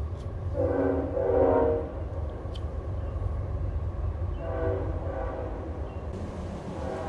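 A train horn blows twice over the low rumble of a passing train. The first blast is the louder, and a few sharp metal taps are heard near the start and a couple of seconds in.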